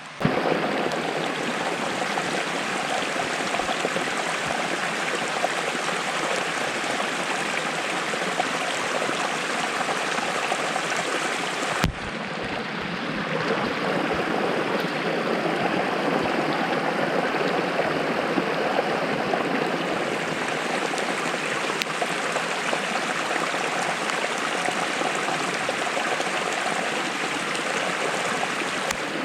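Steady flowing water of a stream or small cascade. A single click and a brief dip in level come about twelve seconds in.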